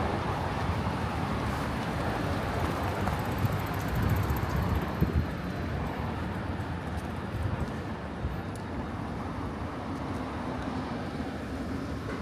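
Steady city street noise: the low rumble of road traffic.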